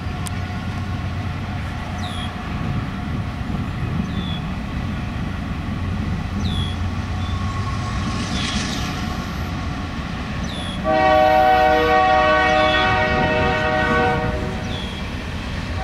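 Union Pacific grain train led by GE AC4400CW diesel locomotives passing with a steady low rumble. The locomotive's horn, several tones sounding together, is faint at first, then blows a loud, steady blast about eleven seconds in that lasts some three seconds.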